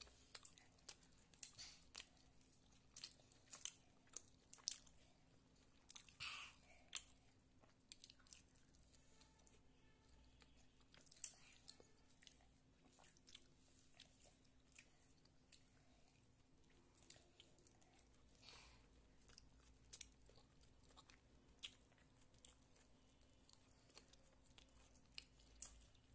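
A child chewing a slice of bread-based pizza close to the microphone: soft, irregular mouth clicks and smacks, several a second at times, with pauses between.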